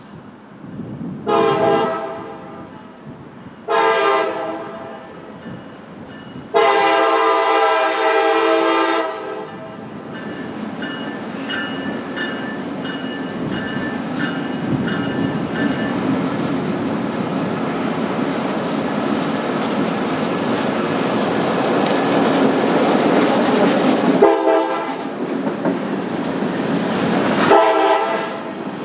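Freight train locomotive horn sounding two short blasts and then a longer one in the first ten seconds. The train's engine and wheels then rumble past, growing louder with clickety-clack, and the horn blows twice more near the end.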